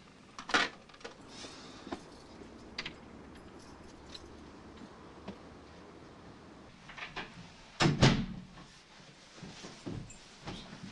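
Indoor knocks and thuds: a sharp clack about half a second in, a few faint clicks, then a heavy double thump about eight seconds in, followed by lighter footfalls on stairs near the end.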